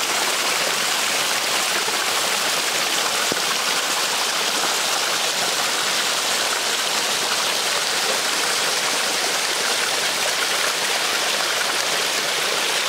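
Small waterfall: thin streams of water spilling down a rock face and splashing, a steady, even rush.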